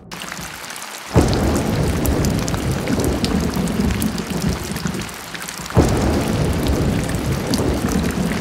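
Heavy rain falling steadily with thunder: two sudden thunderclaps, about a second in and again near six seconds, each rolling on into a deep rumble.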